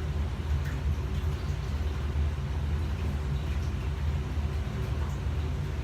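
Steady low machine hum, an even drone that does not change.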